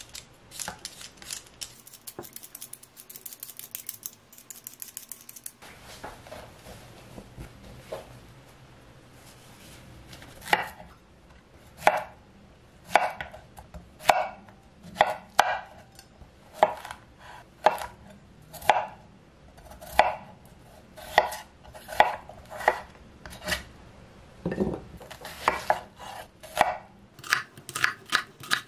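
A vegetable peeler scraping the skin off a potato in quick strokes, then a Wüsthof chef's knife cutting zucchini slices and onion on a wooden cutting board, each cut knocking on the board about once a second and coming faster near the end.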